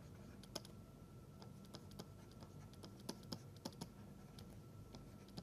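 Near silence with faint, irregular taps and scratches of a pen writing on a surface, over a faint steady hum.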